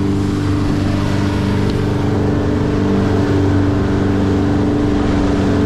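Boat outboard motor running at a steady pitch while the boat trolls, under a constant rush of water and wind.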